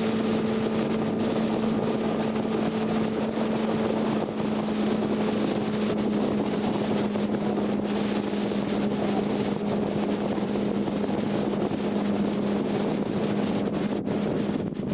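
Motorboat engine running steadily with a constant hum, under heavy wind noise on the microphone and rushing water.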